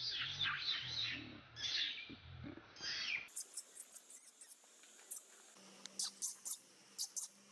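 Baby macaque crying in a run of short high-pitched calls for the first three seconds, then brief, sharp, scattered sounds after a cut.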